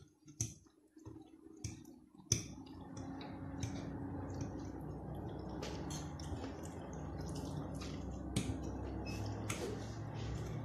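Close-up eating sounds: a fork clicking against a plate, with wet chewing and mouth clicks. About two seconds in, a sharp click is followed by a steady low hum that continues underneath.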